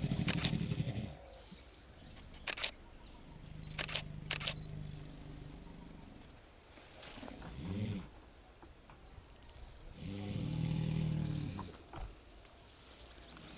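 Sri Lankan elephant giving low rumbles, four times, the longest lasting about two seconds near the end, with a few short sharp clicks in between.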